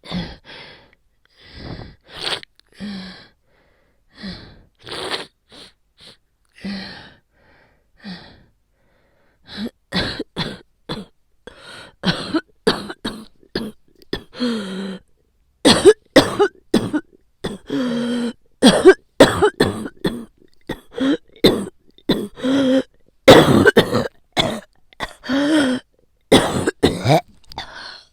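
A woman with a cold coughing hard and repeatedly, a chesty cough from sore, inflamed bronchi. Single coughs come about once a second at first, then about ten seconds in it turns into a long, louder coughing fit with rapid coughs, some with a voiced hack.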